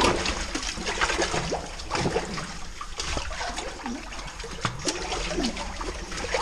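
Water sloshing and splashing as a goat moves in a pool of water in a rock hole, with scattered small knocks.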